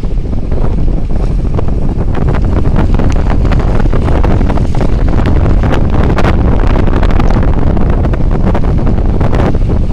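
Strong storm wind buffeting the microphone, a loud continuous rumble broken by gusty crackles.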